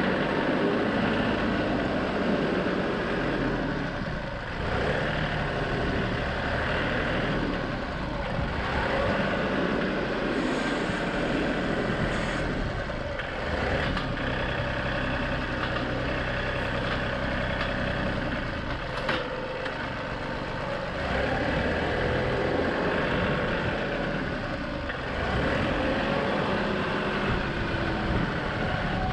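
John Deere 2038R compact tractor's diesel engine running under working load as it drives and works the loader and grapple, its engine note rising and falling. Two sharp knocks stand out, about halfway through and a few seconds later.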